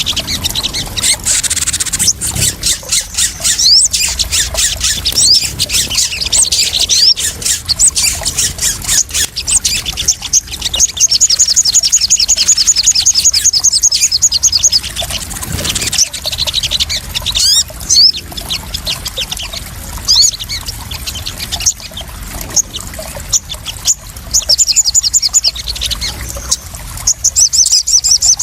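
Sogon sunbirds calling: rapid high-pitched chirps and fast buzzy trills, with long trill runs in the middle and near the end, over the sound of splashing water.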